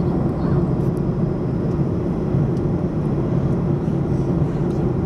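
Steady low drone of a vehicle's engine and running noise heard from inside the cabin.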